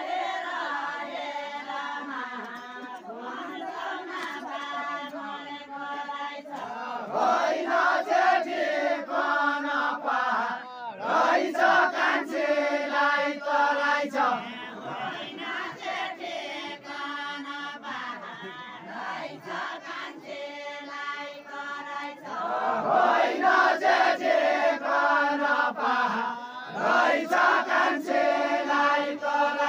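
A group of villagers singing a deuda folk song together, unaccompanied, in a slow chant-like chorus. The sung phrases swell and break off every few seconds.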